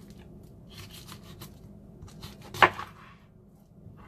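Kitchen knife cutting through raw chicken legs on a plastic cutting board: soft slicing and scraping, then one sharp knock against the board about two and a half seconds in.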